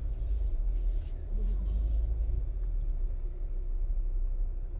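Steady low rumble inside the cabin of a Ford Explorer reversing slowly: engine and tyre noise at low speed.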